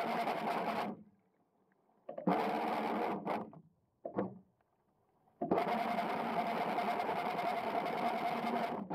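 Waverunner Mark 3 bait boat's electric drive motors whirring with a steady hum, heard underwater, running in spurts. It runs for about a second, stops, runs again for just over a second, blips briefly, then runs steadily for the last three and a half seconds.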